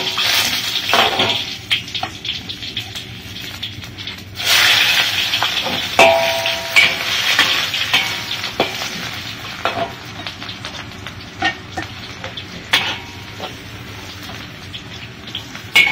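Whole spices (bay leaves, cinnamon, Sichuan peppercorns, tsaoko, star anise) sizzling in hot oil as they are fried for aroma, stirred with a spatula that scrapes and clicks against the pan. The sizzle surges louder about four and a half seconds in.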